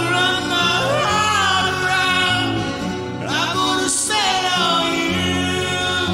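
Male voice singing two long held phrases, each opening with an upward slide in pitch, over a strummed acoustic guitar.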